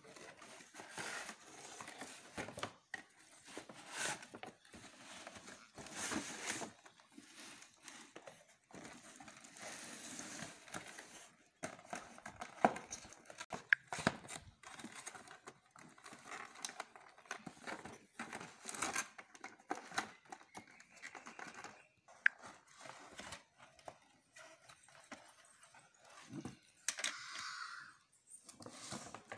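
Cardboard box and plastic packaging of a toy dollhouse being opened and handled: irregular rustling, crinkling and tearing, with scattered sharp knocks and clicks as the plastic house is pulled out of its cardboard tray.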